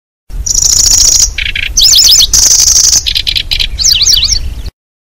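Recorded song of a kecici belalang (lanceolated warbler), played as a lure call. Rapid high, insect-like trills alternate with quick looping chirp phrases. The song starts abruptly just after the beginning and cuts off sharply near the end.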